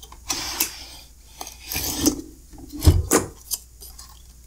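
A sealed lead-acid UPS battery pack is slid out of its plastic housing, scraping and rubbing against the case, with a few clicks and knocks and a dull thump about three seconds in.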